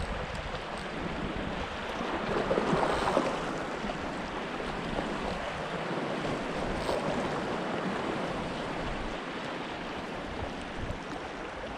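Small ocean waves lapping and washing, with a louder surge of water about two to three seconds in. Some wind buffets the microphone.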